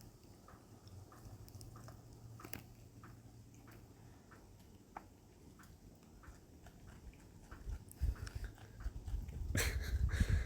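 Possum chewing food scraps: soft, irregular crunching clicks, with a couple of louder scuffling noises near the end.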